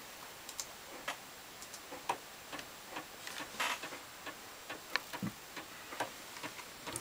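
Minebea 23KM-K255 stepper motor (1.8° per step) ticking as it is stepped round: a run of short, sharp clicks at about three a second, somewhat uneven.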